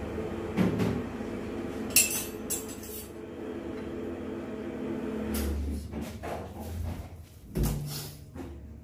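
Knocks and clinks of cooking utensils and dishes being handled, over a steady low hum. A sharp clink about two seconds in is the loudest, and further knocks and thumps follow in the second half.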